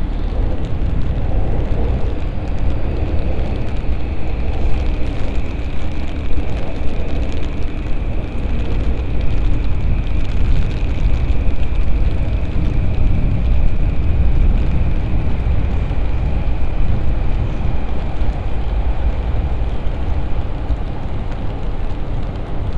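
Loud, steady city traffic noise: a deep rumble of vehicles with a thin high whine held throughout.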